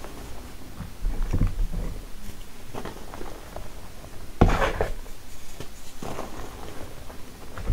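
Hands scooping, squeezing and crumbling handfuls of powdery charcoal dust with small lumps in it. The result is a series of soft rustling crunches, with the loudest, sharpest crunch about halfway through.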